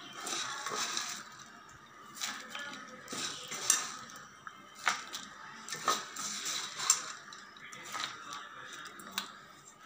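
Puffed-rice mixture being scooped from one bowl into another: a dry rustle with irregular sharp clinks of utensil against bowl.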